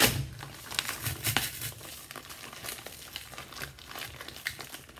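Packaging crinkling and rustling in irregular bursts as the kit's equipment is pulled out, with a sharper crackle right at the start.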